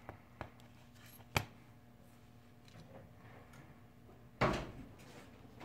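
Objects being handled: a few small clicks, one sharp click about a second and a half in, then a louder clunk with a brief rustle near the end.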